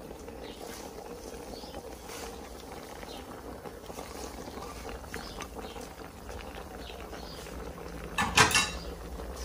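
Pot of crawfish and shrimp simmering, with a steady low rumble underneath and soft rustling as a plateful of fresh basil and mint is tipped in. About eight seconds in comes a brief loud clatter.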